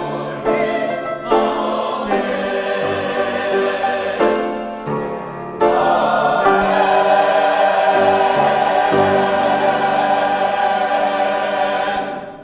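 Mixed church choir singing an anthem with piano. About five and a half seconds in, it swells into a loud, long-held final chord that is cut off together just before the end.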